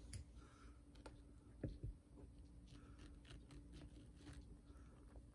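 Near silence with faint, scattered wet clicks of a cat licking and chewing a piece of Korean melon, and one soft knock about a second and a half in.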